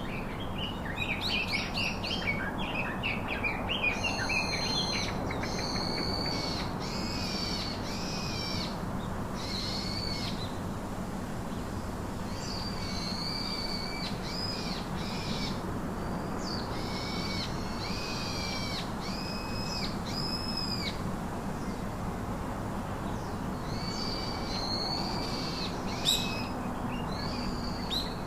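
A bird calling: a quick run of chirps in the first few seconds, then a long series of clear, high-pitched call notes, each under a second long, repeated every second or two.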